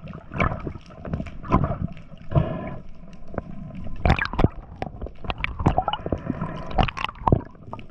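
Underwater gurgling and bubbling, heard through a submerged camera, with frequent irregular clicks and knocks.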